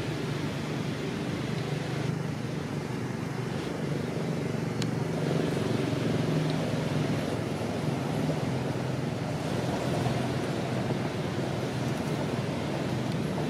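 A steady low motor hum over a noisy background, holding level throughout.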